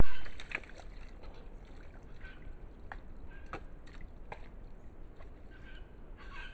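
Sambar stag wallowing in a muddy pool, wet mud and water sloshing and splashing as it gets up and steps out, with scattered clicks and squelches. A loud thump opens it and fades quickly.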